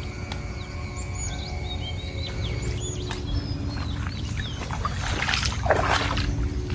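Background music mixed with many short bird chirps and calls. A steady high whine cuts off suddenly about three seconds in.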